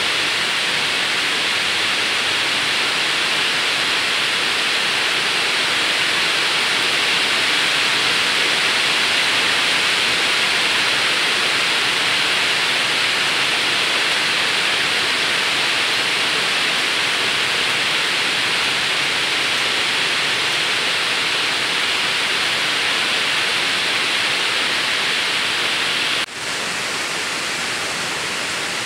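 A steady, even hiss with no distinct tone or rhythm. About 26 s in it drops out for a moment, then carries on slightly quieter.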